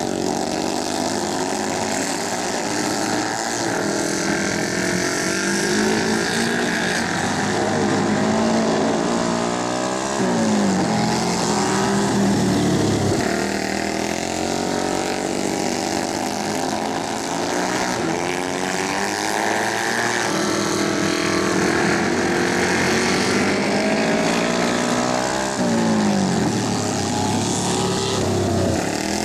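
Several flat track racing motorcycles running hard together, their engine notes rising and falling as the riders roll off and get back on the throttle through the turns. The pitch drops sharply about ten seconds in and again near the end.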